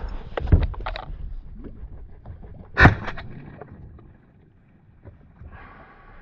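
Two shotgun shots about two and a half seconds apart, the second the louder.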